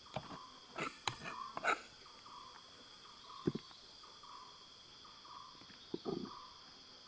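Steady high insect buzz, as of cicadas or crickets, with a short chirp repeating about twice a second from about two seconds in. Several sharp knocks in the first two seconds and two more later on, typical of digging tools striking soil and stones.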